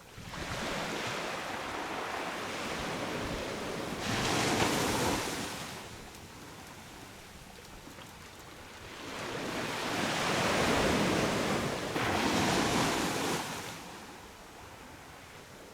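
Sea waves breaking on a beach and washing up the shore in slow surges. One builds about a second in and peaks around four to six seconds; a second swells from about nine seconds to thirteen, with quieter ebbing wash between and near the end.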